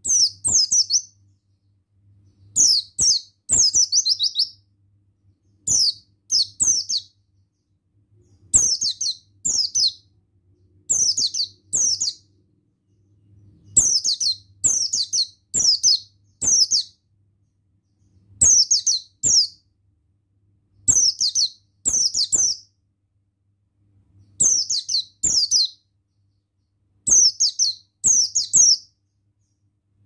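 Buxtoni white-eye (pleci) singing: short bursts of two to four rapid, high chirps, each falling in pitch, repeated every second or two.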